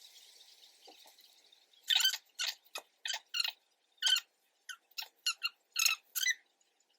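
A short soft hiss, then about a dozen quick sticky squeaks and smacks from fingertips tapping lace glue (Ghost Bond) that is turning tacky.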